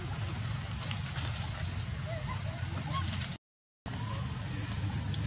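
Steady outdoor background noise, a low rumble with a high steady hiss over it, with a few faint short calls that rise and fall in pitch. A little past halfway the sound cuts out completely for about half a second.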